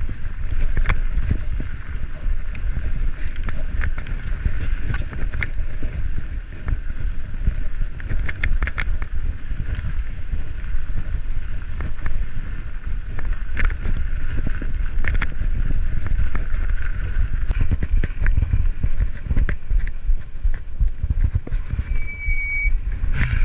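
Wind buffeting the microphone of a camera riding along on a bicycle, with steady road rumble and scattered clicks and rattles from bumps. Near the end a brief high-pitched tone sounds and cuts off.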